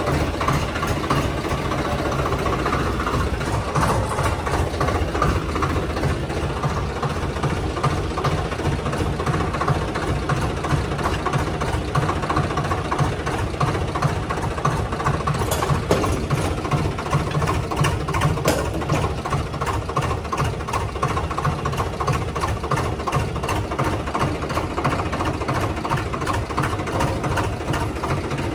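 Swaraj 744 XT tractor's three-cylinder diesel engine running steadily.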